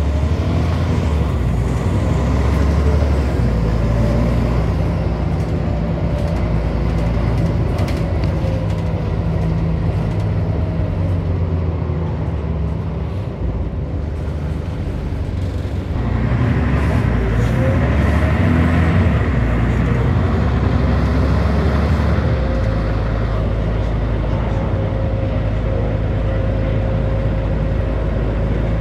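Scania N94UB single-decker bus heard from inside the saloon, its Scania DC9 9-litre five-cylinder diesel and ZF Ecomat automatic gearbox pulling the bus along. The engine and transmission whine rise in pitch as it accelerates, ease off around twelve seconds in, then climb again from about sixteen seconds before settling to a steady cruise.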